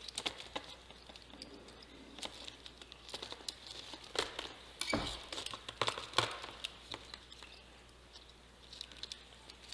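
Light handling noise of a thin clear plastic tray with a mesh screen and metal binder clips: scattered clicks and crinkles of the plastic as it is lifted, turned and clipped, with a slightly louder knock about five seconds in.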